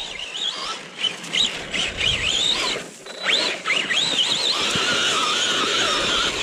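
Arrma Big Rock RC monster truck's electric motor whining up and down in pitch as the throttle is worked, several short revs in a row, then held at a steadier whine near the end over the hiss of the truck running. The truck is running on two-wheel drive with one axle broken.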